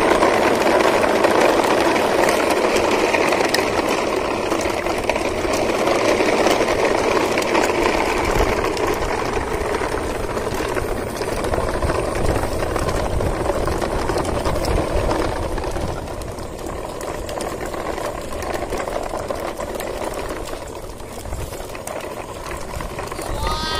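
A toy truck and its train of plastic trailers rolling over rough concrete: a steady rattling rumble of hard plastic wheels and couplings, easing off a little in the last few seconds.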